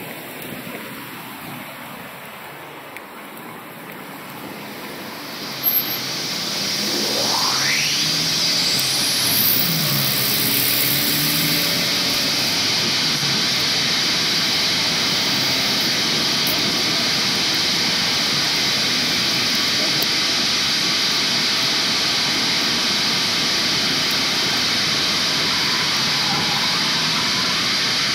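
Electronic noise composition: a tone glides down in the first few seconds, then after a sharp click a tone sweeps steeply upward while a dense, steady rushing noise, like a jet engine, swells in and holds.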